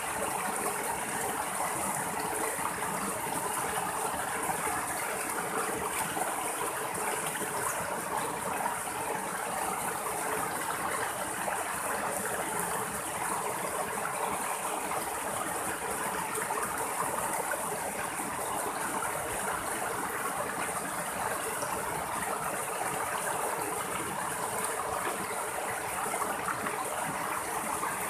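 Small rocky stream running steadily over two little cascades between boulders, an even rush of splashing water.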